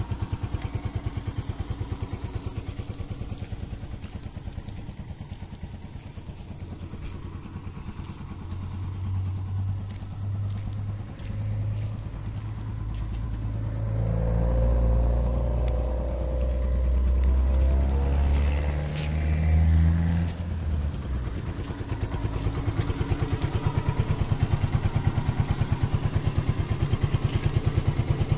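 Honda TMX 125 tricycle's single-cylinder four-stroke engine idling steadily. A second, louder engine sound swells and fades in the middle.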